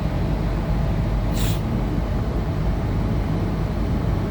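Inside the carriage of a Tangara electric multiple unit: a steady low rumble of the train running along the track, with a brief hiss about a second and a half in.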